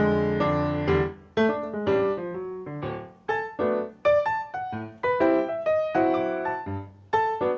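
Background music: a solo piano playing a gentle melody over chords, each note struck and left to fade.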